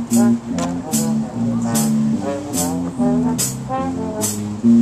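Student jazz band playing: saxophones and trombones holding low brass notes over a bass guitar, with a high percussion tap marking a steady beat about once a second.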